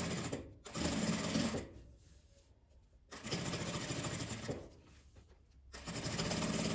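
Sewing machine stitching along the edge of a fabric pocket, running in spurts and stopping twice for a second or more before starting again.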